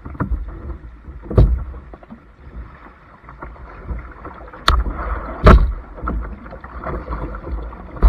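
A plastic kayak moving through creek water with paddle splashing, broken by sharp knocks on the hull about one and a half, four and a half and five and a half seconds in, the last the loudest. At the very end the bow thuds onto the creek bank.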